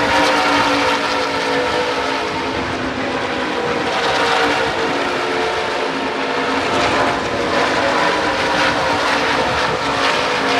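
Steady engine noise with a held whine over a continuous rumble.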